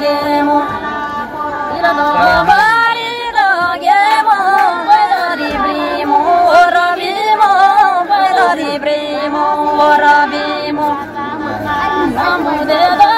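Women singing a Tamang folk song, the voices holding long notes that bend up and down.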